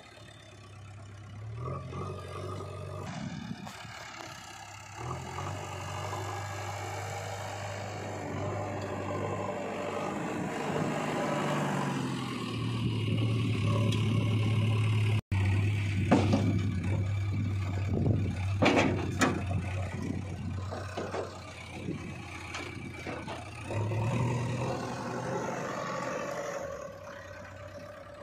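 JCB 3DX backhoe loader's diesel engine running, its pitch stepping up as it revs to work the loaded front bucket. In the second half comes a run of sharp knocks and clatters as dry soil tips out of the bucket.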